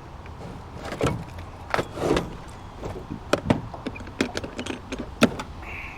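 A series of irregular sharp knocks and clicks, about seven in all, spaced unevenly over a low steady background.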